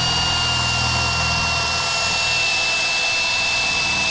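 Cordless drill running steadily under load as it bores a hole, its motor whine sagging slowly in pitch as the bit bites.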